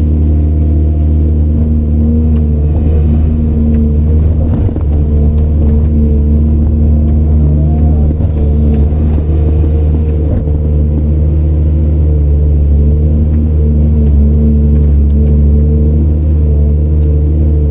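Heavy earthmoving machine's diesel engine running steadily at a constant pitch, with a faint knock or two.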